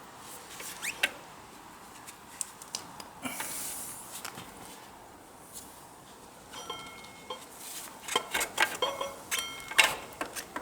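Metal hand tools clinking and scraping against motorcycle parts, with scattered small clicks and several sharper metallic clinks that ring briefly, busier in the second half.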